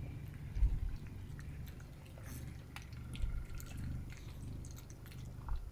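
Two Pomeranians eating from food bowls: faint chewing with a few soft clicks and knocks against the bowls, over a steady low hum.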